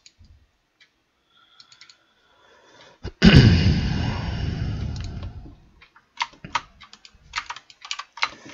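Computer keyboard and mouse clicks: a few scattered clicks at first, then a run of keystrokes in the last couple of seconds. About three seconds in comes a sudden loud thump with a noisy tail that fades over about two seconds, the loudest sound here.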